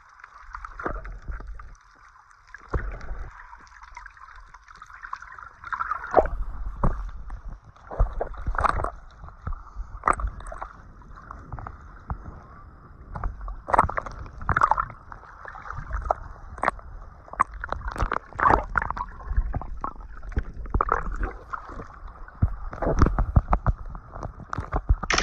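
Water sloshing and gurgling with many irregular splashy knocks over a steady hiss, busier from about six seconds in.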